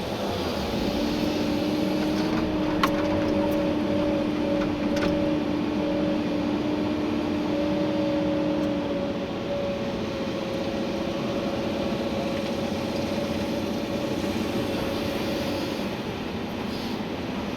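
Komatsu PC290-11 excavator's six-cylinder diesel engine and hydraulics running under load while digging gravel, heard from inside the cab: a steady machine drone with two whine tones that shift and drop out, and a couple of sharp clicks a few seconds in.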